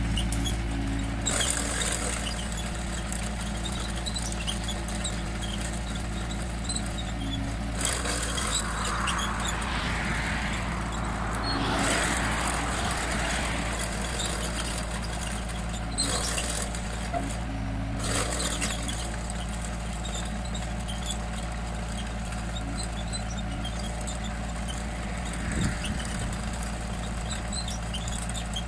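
Hyundai crawler excavator's diesel engine running steadily under load as its hydraulic chain ditching attachment cuts a trench in soil. A rushing noise swells and fades around the middle.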